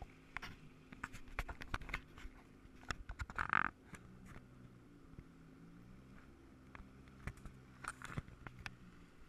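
Jet ski engine idling at low speed, a steady low hum. Frequent sharp knocks and clicks run over it, with one brief louder burst about three and a half seconds in.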